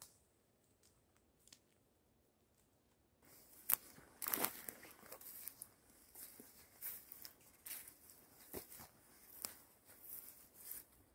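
Footsteps crunching and rustling through forest undergrowth and leaf litter, starting about three seconds in, with sharp crackles roughly once a second.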